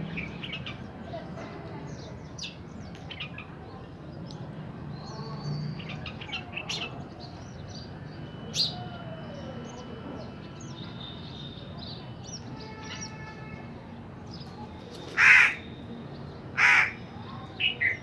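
House crow cawing: two loud caws about a second and a half apart near the end, then two short quick ones. Scattered small-bird chirps and a low steady hum run underneath.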